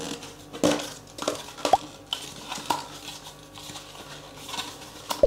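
Hard white plastic parts of a portable air conditioner's door vent kit knocking and clicking together as they are handled and fitted by hand, a string of irregular light knocks with one sharper click a little under two seconds in.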